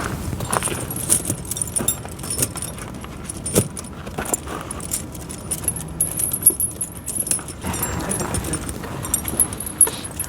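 Steel tractor tire chain being handled, its links clinking and jingling with scattered sharp clicks and knocks.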